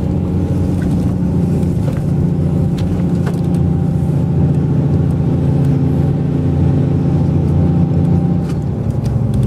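Steady engine hum and road noise of a moving vehicle, heard from inside its cabin.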